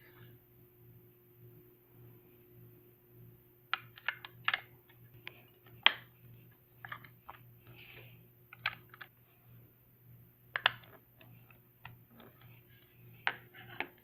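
Irregular light plastic clicks and taps of a small digital pocket scale being handled: batteries being fitted into its battery compartment and the cover snapped on. The clicks come in small clusters, starting about four seconds in.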